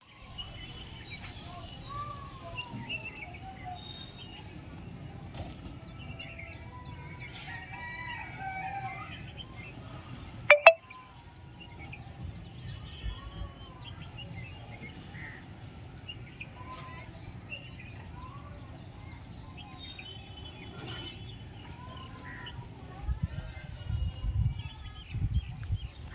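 Birds calling: many short rising-and-falling calls with clucking and crowing like domestic fowl, mixed with higher chirps. One loud sharp snap comes about ten seconds in, and low thumps come near the end.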